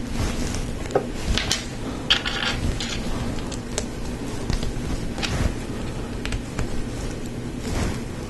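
Plastic Lego Technic pieces handled and fitted together: scattered short clicks and brief rattles of parts, over a steady low background hum.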